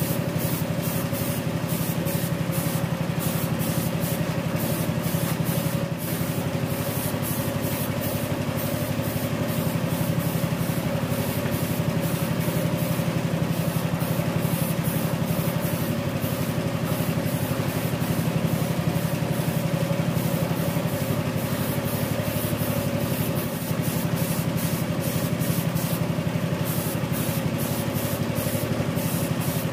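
Gravity-feed air spray gun hissing in many short bursts as paint is sprayed onto an engine block, over a steady low motor hum.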